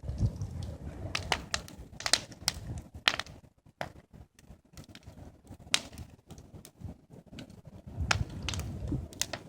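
Wood and sawdust fire burning and crackling, with irregular sharp snaps and pops and a low rumble near the start and again near the end.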